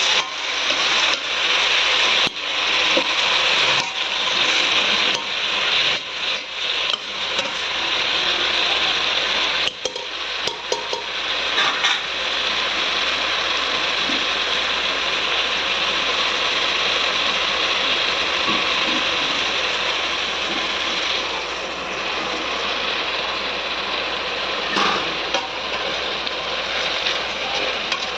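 Chicken pieces frying in hot oil with onions, a steady loud sizzle. A spatula scrapes and clatters against the pan as the chicken is stirred, with many clicks in roughly the first twelve seconds. After that the sizzle goes on evenly.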